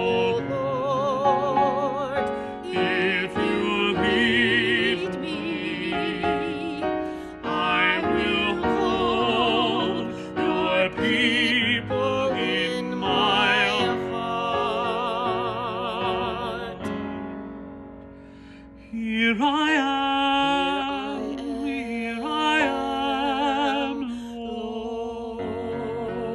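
A man and a woman singing a hymn as a duet in a classical style, with strong vibrato. A little past halfway the sound dips almost away for a moment, then the singing comes back.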